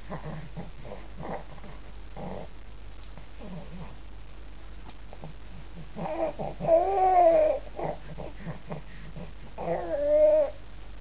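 Newborn baby fussing: soft short grunting noises, then two whimpering cries with a rising-and-falling pitch, one about six seconds in and a shorter one near the end.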